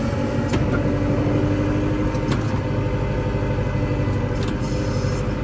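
Kubota L6060 tractor's diesel engine running steadily under plowing work, with a few short knocks or clicks over it.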